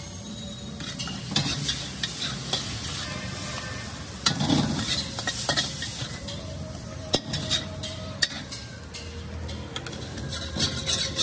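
Chowmein noodles sizzling in a hot wok while a long metal spatula stirs and scrapes through them, with a few sharp clangs of the spatula against the wok.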